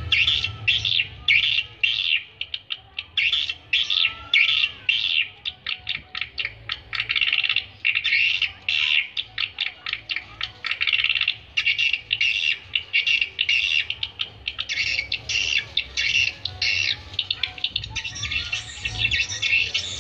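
Swiftlet calls: a rapid, continuous run of short trilled chirps, two or three a second. This is the kind of twittering used to lure swiftlets to a nesting house.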